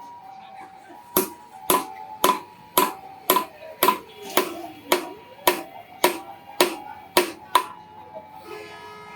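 Blacksmith's hand hammer striking iron on an anvil while forging a boti blade: a steady run of about two blows a second, each with a ringing metallic tone. The hammering starts about a second in and stops near the end.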